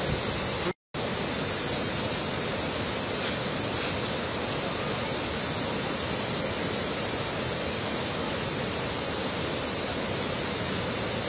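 Steady rush of the flooded Ghataprabha River pouring over stepped rock falls, with a short cut to silence about a second in.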